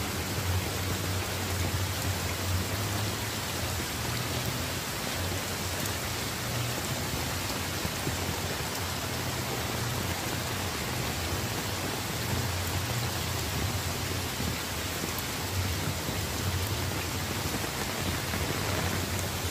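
Steady rain falling on floodwater and the surrounding street, an even hiss with a low rumble beneath it.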